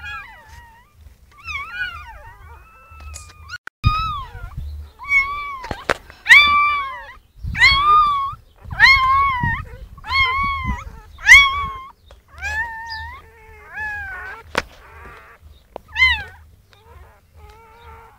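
Newborn puppies squealing: a run of high-pitched cries, each rising then falling, coming about once a second and loudest in the middle. A few sharp clicks are heard among them.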